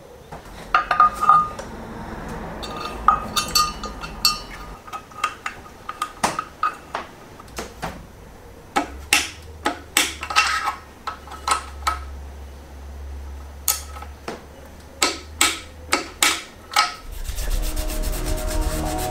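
Sharp metal clinks, taps and knocks as an oil pump pickup and a socket wrench are handled and fitted on a bare engine block, with ringing metallic clinks about a second in. Music comes in near the end.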